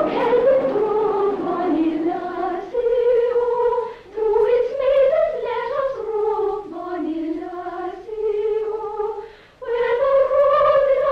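A woman singing a slow melody with long held notes, in phrases with short breaks between them.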